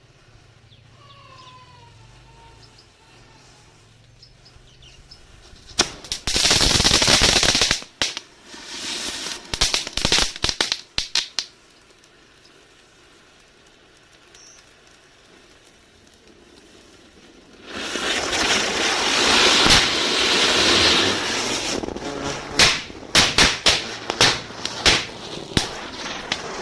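Anar fountain firecrackers going off twice: each starts as a loud, steady hiss of spraying sparks and breaks into a run of sharp cracks and pops. The first lights about six seconds in; the second starts about eighteen seconds in, hisses for about four seconds and ends in a quick string of cracks.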